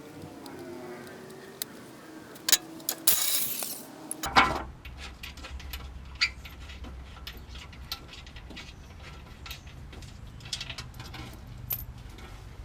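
Clicks, knocks and metal clatter from tools and fasteners during work under a car. There is a short louder burst of noise about three seconds in and a sharp knock just after four seconds, followed by a steady low hum.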